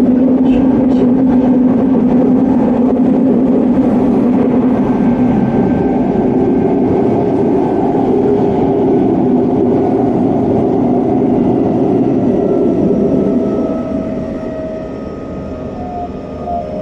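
Running noise of a Hanshin 1000 series electric train heard from inside a motor car: a steady rumble of wheels and motors on the track. About 13 seconds in the rumble drops off and a faint motor whine comes through.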